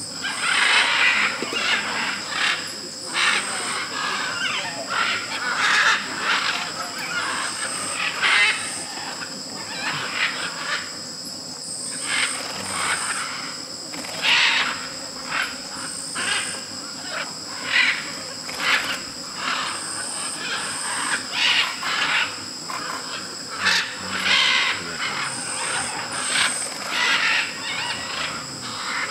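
A flock of macaws calling: many short, raspy squawks overlapping at irregular intervals, over a steady high-pitched drone of rainforest insects.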